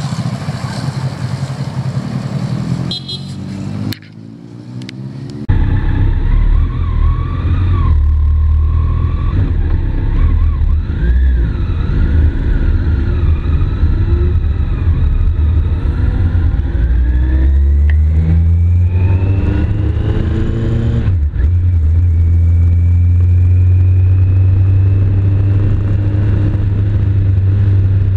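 Motorcycle engine heard from on board the bike, a Kawasaki 1400GTR touring bike, over a loud low rumble. The engine pitch climbs as it accelerates and drops sharply at a gear change about three-quarters of the way through, then climbs slowly again. In the first few seconds another motorcycle is heard pulling away.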